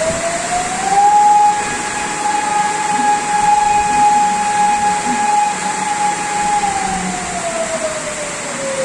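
An outdoor warning siren sounding one long wail: it climbs in pitch over about the first second, holds a steady tone for about five seconds, then winds down falling in pitch near the end. Under it runs the steady rush of the storm.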